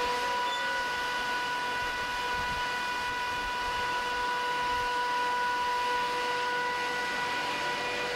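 British Rail Class 85 electric locomotive moving slowly past: a steady roar with a constant whine held on one pitch with overtones, the noise that gives the class its 'Roarer' nickname.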